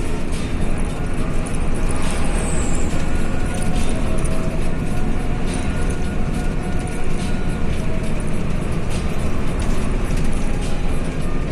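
Mercedes-Benz diesel engine of an express intercity bus running steadily, a loud continuous low rumble.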